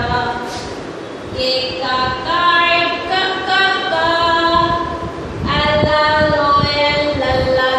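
A woman singing a children's phonics song, in a sing-song melody of held notes.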